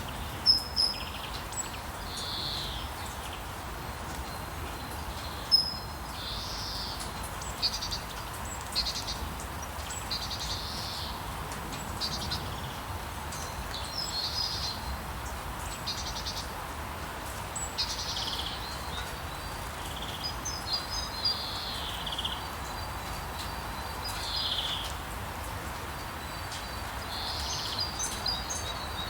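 Steady rain hiss with songbirds calling and singing over it: short phrases and chirps every second or two, with a few sharp chips standing out.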